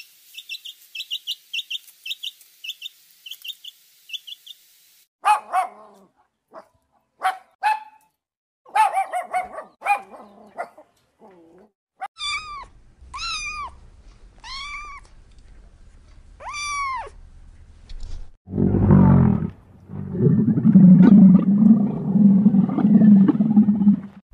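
A string of different animal calls: fast, high, chirping trills for the first five seconds, then scattered short squawks and cries, four rising-and-falling cries about a second apart, and a loud, deep growl over the last five seconds.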